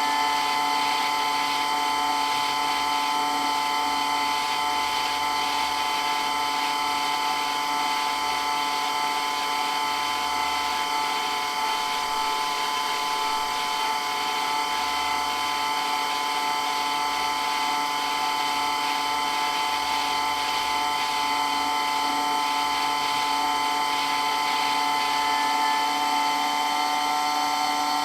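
Water pump running steadily, very loud, with a constant whine made of several steady tones.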